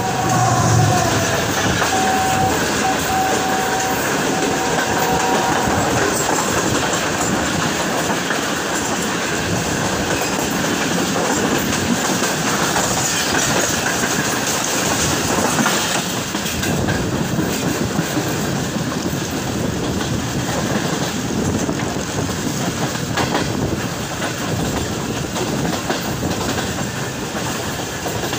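A train horn sounding in a chord, dipping in pitch about a second in and then held until about six seconds in, as two express trains cross on adjacent tracks. After that come the steady clatter and rumble of train wheels on the rails.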